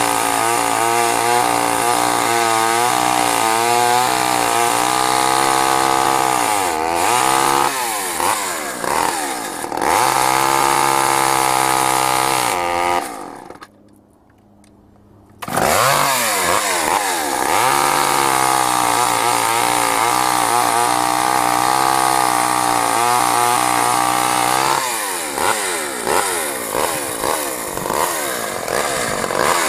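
Craftsman two-stroke chainsaw running at high throttle, its pitch dipping and recovering several times as it works. The sound drops away about thirteen seconds in and comes back abruptly about two seconds later.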